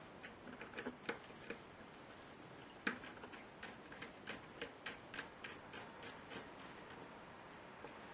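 Small sharp clicks from handling laptop parts and tools: a few scattered ones, a louder one about three seconds in, then a quick, fairly even run of about three clicks a second that stops about six and a half seconds in.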